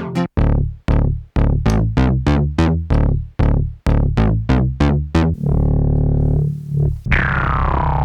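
Arturia MiniFreak synthesizer playing a sequenced run of short, plucked bass notes, about four a second. Near the end it moves to a held low note, and then to a sustained sound whose brightness sweeps downward.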